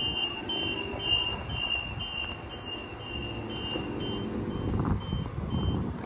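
Door-closing warning beeps of a Sydney Trains Waratah double-deck electric train: short two-tone beeps, about two a second, growing fainter near the end, over the low rumble of the train standing at the platform.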